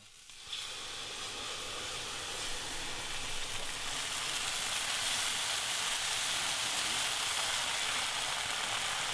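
Water sizzling and hissing in a hot wok of freshly roasted rice, starting about half a second in and growing slowly louder as a steady hiss. This is the start of half-cooking the rice for rice wine.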